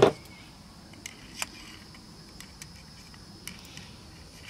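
Insects chirring steadily at a high pitch, broken by a few faint clicks.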